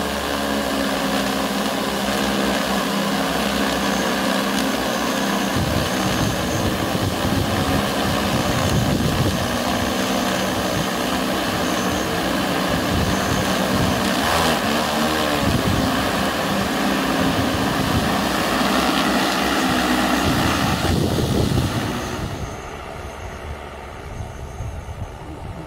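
DJI Agras T30 spraying drone in flight, its six large rotors running with a steady loud hum of several tones over a rushing noise. The sound falls away to a fainter, duller hum about 22 seconds in.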